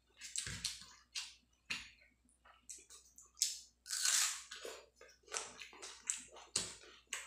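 Close-miked eating by hand: short wet squishes and crunches of chewing and fingers working the rice. About four seconds in comes a loud crunching bite into a raw onion.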